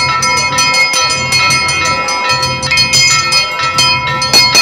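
Temple bells ringing continuously, struck several times a second, with a low rhythmic pulse beneath.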